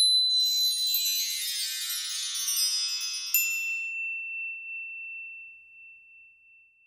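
Logo-sting sparkle effect: a shimmering cascade of high tinkling chimes that opens with a bright strike. A second bright ding comes about three and a half seconds in and rings on as one high tone, fading away.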